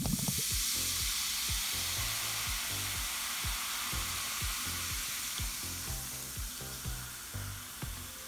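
Bubble-and-fizz powder in a toy cauldron fizzing as water is poured onto it: a steady hiss that starts at once and slowly fades, over background music with a steady beat.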